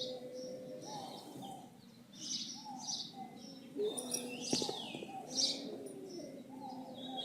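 Birds chirping in short, high, repeated calls, over a lower wavering call that rises and falls. The person recording takes this for a woman crying.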